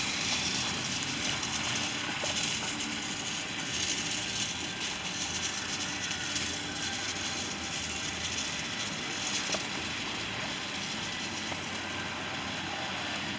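Steady city street traffic noise, a continuous wash of passing vehicles with no single event standing out.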